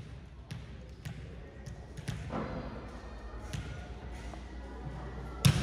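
Volleyball being bounced on a gym floor, a short knock roughly every half second, ending in one sharper, louder smack of the ball near the end.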